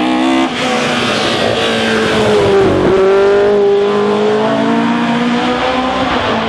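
A Ford Escort Mk2 race car's engine revving hard as the car accelerates uphill past the camera. The pitch climbs, dips briefly about three seconds in, then climbs again.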